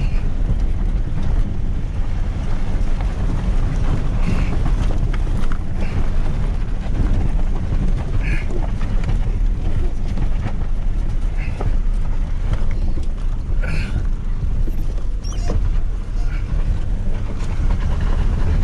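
Pickup truck climbing a steep dirt farm track: a steady low rumble of engine and tyres, with wind buffeting the microphone.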